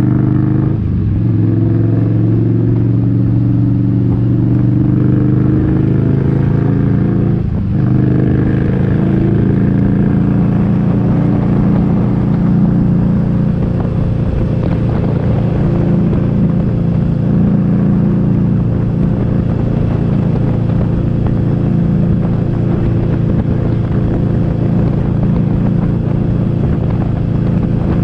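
Motorcycle engine running steadily under way, with low wind rumble on the microphone. The engine note breaks briefly about a second in and again at about seven and a half seconds.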